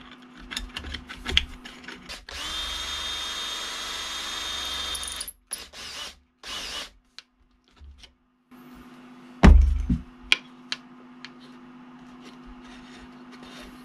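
Cordless drill spinning the steel worm shaft of a small aluminium rotary table. The motor whines up to speed and runs for about three seconds, then gives two short bursts. Handling clicks come before it and one loud knock about halfway through. The builder thinks the steel-on-aluminium worm will need copper slip to keep it from seizing.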